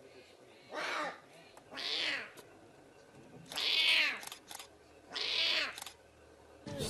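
Lion cub mewing: four high-pitched cries, about a second to a second and a half apart.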